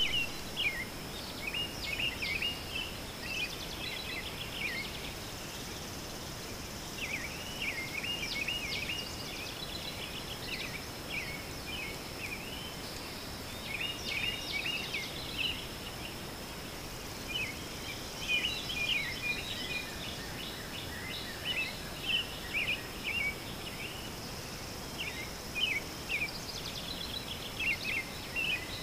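Small songbirds chirping in repeated short clusters over a steady, high insect drone.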